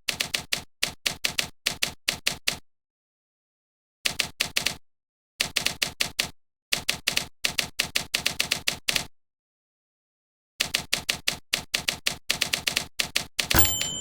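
Runs of quick, sharp mechanical clicks, several a second, broken by gaps of complete silence, with a brief ringing tone near the end.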